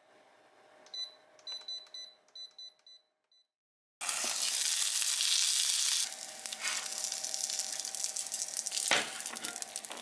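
A run of short, high electronic beeps in the first three seconds. After a brief gap, gyoza fry in a small rectangular tamagoyaki pan with a loud, crackling sizzle that eases a little about six seconds in, and a single knock near the end.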